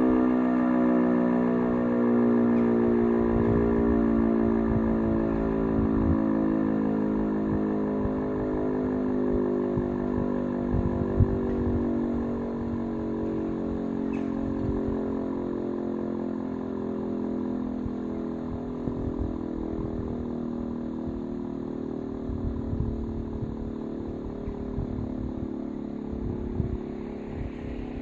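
E57 electromechanical rotary siren switched off and winding down: its tone falls slowly and steadily in pitch and fades away.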